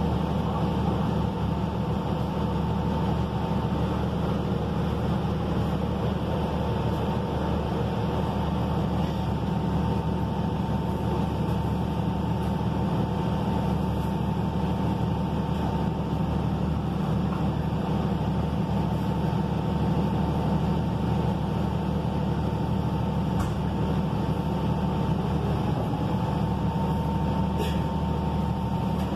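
Cummins ISL9 diesel engine of a Gillig Low Floor bus idling, heard from inside the passenger cabin as a steady low hum with a thin steady whine above it. Near the end the engine note changes as the bus begins to pull away.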